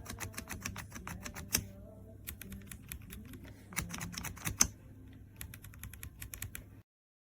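Typing on an RK Royal Kludge M75 mechanical keyboard with red linear switches: quick runs of key clacks in uneven bursts, with a few louder strokes. It cuts off abruptly near the end.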